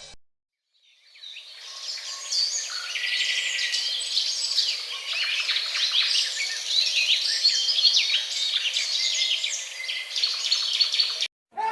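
Birds chirping sound effect: a dense chorus of many small birds giving short, high chirps and trills. It fades in about a second in and cuts off sharply near the end.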